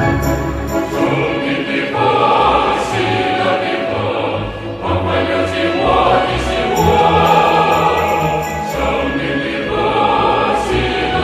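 Choral music with orchestral accompaniment: a choir singing long, held notes.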